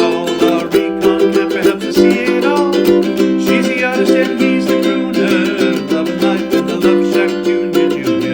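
Background music: strummed and plucked ukulele with a steady beat.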